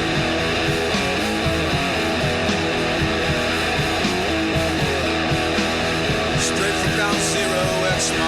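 Rock song with guitar, in a stretch without singing; the music runs at a steady, loud level.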